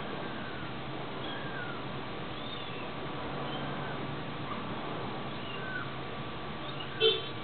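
Kittens mewing: faint, short high-pitched mews about once a second, with one louder mew near the end.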